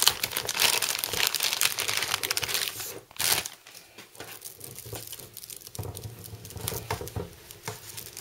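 Clear plastic bag crinkling as hands pull it open and off a bundle of sleeved power-supply cables, dense and loud for about three seconds, then quieter scattered rustles and clicks as the braided cables are handled.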